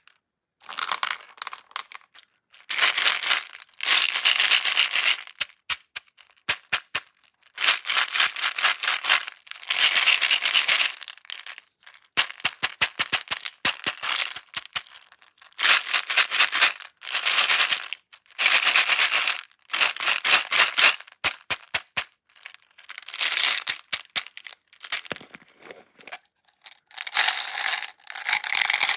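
Plastic beads poured onto trays in repeated waves, each pour a rushing clatter lasting a second or two, with single beads clicking and settling between the pours.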